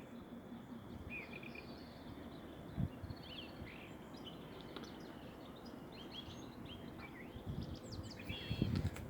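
Small birds chirping and calling in short scattered phrases over a steady low background rumble, with a single knock about three seconds in and louder low rumbling near the end.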